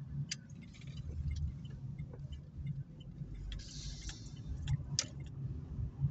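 Low engine and road rumble heard inside an Opel Meriva's cabin while driving slowly, with scattered sharp clicks and rattles at uneven intervals and a brief hiss a little past the middle.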